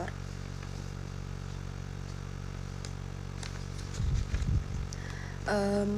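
Steady low electrical hum, with a brief low rumble about four seconds in.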